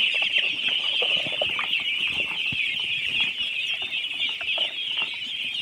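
A large flock of Indian Runner ducklings peeping all at once, a steady, dense chorus of many overlapping high peeps.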